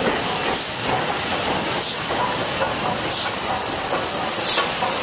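LNER D49 class 4-4-0 steam locomotive Morayshire moving slowly past with a steady hiss of steam, and sharper hisses about once every second and a half.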